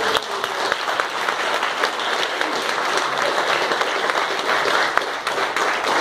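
Audience applauding, many hands clapping at once, easing off near the end.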